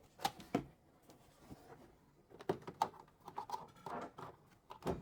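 Scattered light clicks and knocks of kitchen items being handled: two sharp clicks near the start, then a cluster of taps and knocks from about halfway through.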